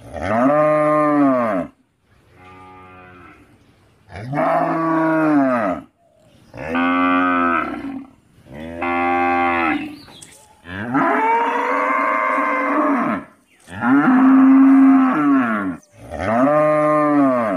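A cow mooing: eight long calls, each rising and then falling in pitch, with short pauses between them. The second call is much quieter than the rest.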